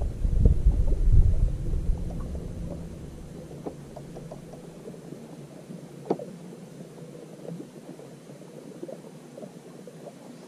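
Wind gusting across the microphone: a low rumble that dies away after about two seconds. Then a quieter stretch with scattered light clicks and knocks, one sharper knock about six seconds in.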